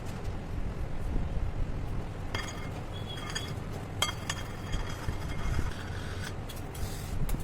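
Light clinks of kitchenware, a utensil knocking against glass or a dish, in two short clusters with a brief ringing tone, over a steady low rumble.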